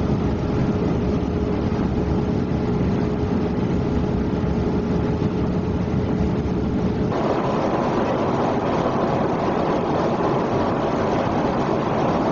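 Steady cabin noise inside an aircraft: an even rumble and hiss with a faint steady hum tone. About seven seconds in the sound changes abruptly, losing most of its low rumble and turning hissier.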